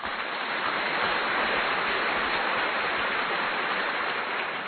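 A steady, even hiss of noise with no rhythm or pitch, like rain or static.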